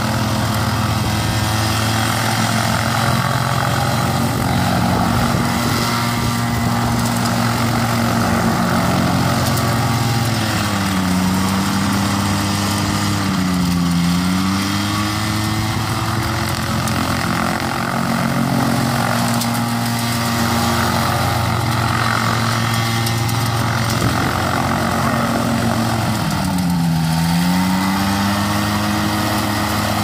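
Kolb ultralight's pusher engine and propeller running steadily as the aircraft taxis on grass. The engine speed dips and comes back up twice, about a third of the way in and again near the end.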